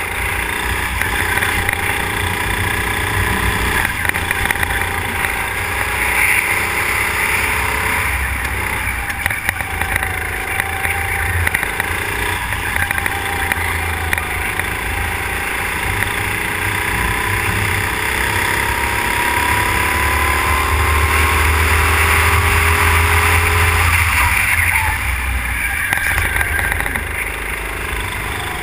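Go-kart engine heard from on board, running at high revs, its pitch climbing steadily and then dropping back several times as the throttle is lifted for corners.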